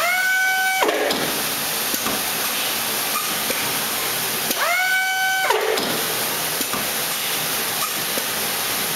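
Automatic capping machine cycling: twice, about four and a half seconds apart, the capping head gives a short whine that rises quickly, holds for under a second and drops away, over a steady hiss of machinery.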